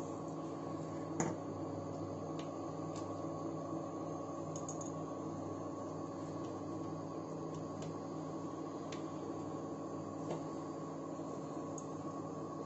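Steady hum with several fixed tones from an induction cooktop heating a pan, with a few faint clicks scattered through it.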